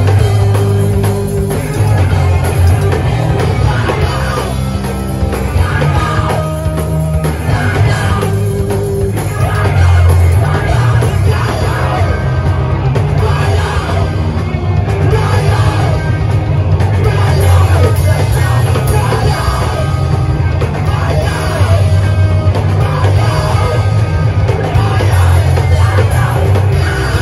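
Live rock band playing loudly: drum kit and amplified instruments with shouted vocals, heard from within a small room.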